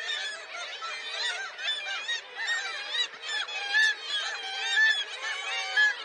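A black-legged kittiwake colony calling: many overlapping short, rising-and-falling calls, with a few louder ones in the second half.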